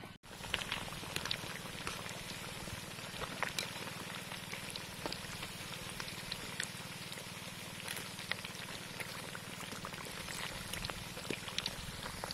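Battered fish pieces deep-frying in a wok of hot oil: a steady sizzle with many small scattered pops and crackles.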